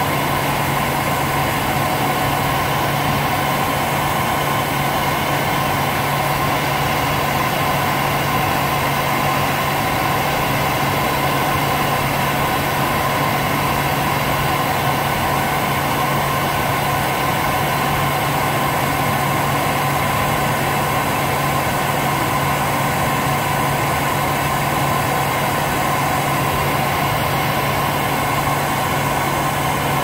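World Dryer Airstyle model RB wall-mounted hair dryer running: its blower motor gives a steady low hum over a steady rush of air.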